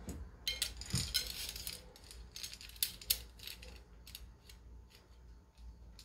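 Steel timing chain (a new Mopar chain) jingling and clinking as it is handled: a quick run of small metallic clicks that thins out over the last couple of seconds.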